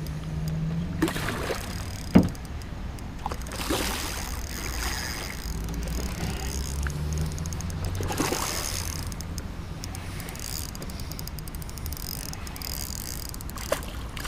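Water splashing several times over a steady low rumble, with one sharp knock about two seconds in.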